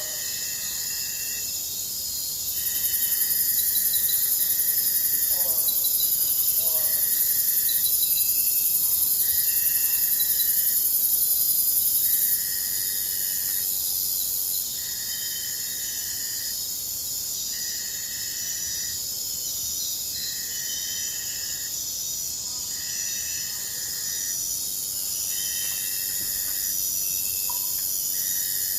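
Forest or jungle ambience dominated by insects: a steady high-pitched shrilling, with a louder high buzz from about 3 to 12 seconds in. A call repeats about every two seconds throughout, and a few brief bird chirps come through.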